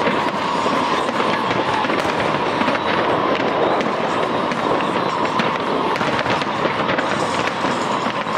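Aerial fireworks display with many shells bursting in quick, overlapping succession: a dense, unbroken run of bangs and crackle with no pauses.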